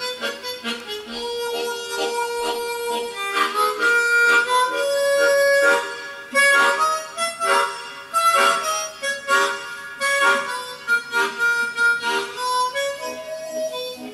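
Instrumental background music: a quick melody of short, rhythmic notes over a few longer held notes.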